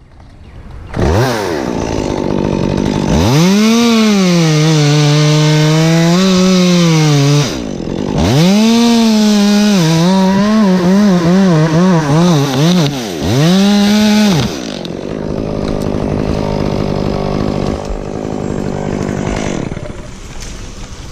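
Stihl two-stroke chainsaw revving up and cutting into oak wood in two long cuts, its pitch dropping under load and recovering, with a quick rising-and-falling wobble during the second cut. It then drops back to a lower, steadier running sound.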